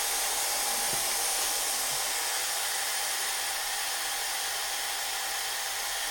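Compressed air hissing steadily from a CNC airblast nozzle, with the solenoid valve held open during a test of the system.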